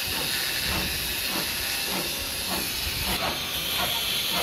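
A steady high-pitched hiss, with faint knocks about twice a second underneath.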